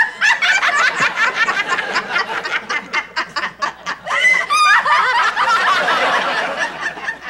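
Two women laughing hard together in quick, repeated bursts.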